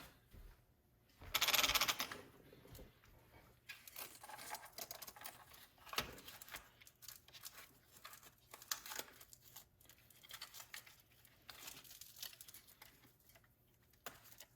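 A hook-and-loop battery strap is ripped open in one loud burst a little over a second in. Then come scattered clicks and rustles as a LiPo battery pack is handled and pushed into an RC truck's plastic battery box.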